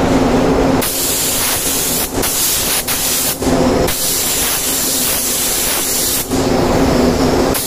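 Sagola gravity-feed spray gun spraying clear coat: a loud, even hiss of atomising air in bursts as the trigger is pulled and released. It starts about a second in, has brief breaks near two and three seconds and a longer half-second pause, and stops about six seconds in. A steady hum sits under it throughout.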